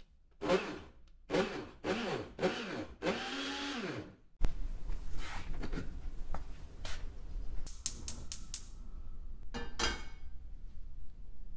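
Ariete Blendy Metal blender pulsed five times to mix crepe batter: four short bursts and a longer fifth, the motor whirring up and spinning down in pitch each time. After that come scattered clicks and knocks.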